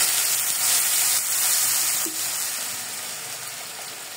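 Blended onion, garlic, turmeric and bird's-eye chili paste sizzling loudly in hot oil in an aluminium wok, just poured in as the first frying (tumis) of the spice paste. The sizzle slowly dies down.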